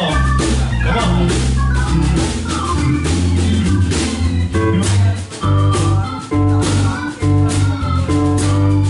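A live blues band playing: electric bass notes, drum kit hits and held organ tones from a stage keyboard.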